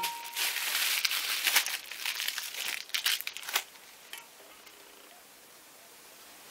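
Clear plastic packaging crinkling and crackling as it is handled and pulled open, for about three and a half seconds before it goes quiet.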